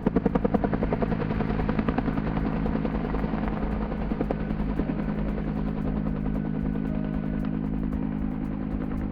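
Firefighting helicopter: the fast beat of its rotor fades over the first couple of seconds, leaving a steady engine drone.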